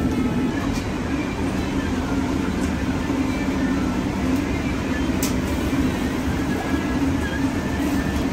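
Steady rumbling drone of a restaurant kitchen's running equipment: the extractor hood fan and the gas-fired vertical doner broiler. A few faint clicks of utensils sound about a second, three seconds and five seconds in.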